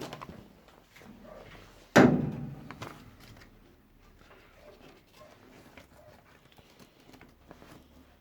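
A single heavy thunk about two seconds in, dying away over about a second, with faint scattered handling sounds before and after.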